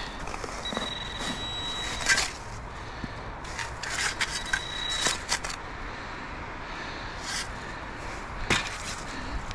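A metal detector's high steady tone sounds twice over scrapes and crunches of digging in a hole in woodland soil. The first tone lasts about a second and a half and the second is shorter. The detector is reading a metal target still in the hole.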